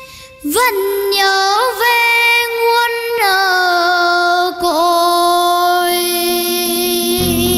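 A young girl singing solo into a microphone. After a brief dip she holds a few long, ornamented notes with vibrato, without words, and the backing music comes back in near the end.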